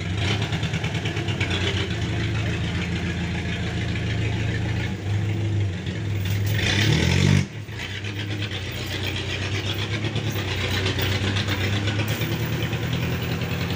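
A vehicle engine running hard under load. Its pitch climbs as it revs up about six seconds in, then drops suddenly, and it goes on running steadily after that.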